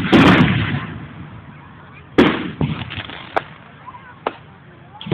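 Aerial firework shells bursting: two loud booms about two seconds apart, each trailing off, followed by a few smaller sharp cracks.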